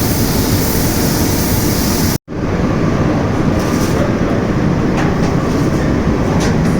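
Steady, even machine noise with no clear pitch, broken by a sudden momentary silence about two seconds in.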